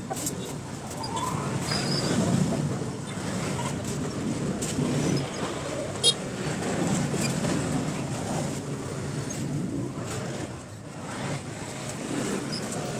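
Road traffic, mainly motor scooters and motorcycles passing, swelling and fading as each goes by. There is one short, sharp knock about six seconds in.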